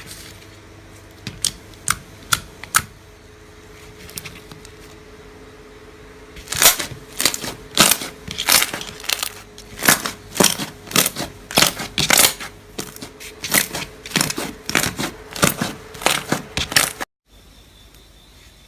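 Slime being squished and poked by hand, making crisp clicking and popping sounds. A few scattered clicks come first, then a quick run of pops, several a second, from about six seconds in, stopping abruptly near the end.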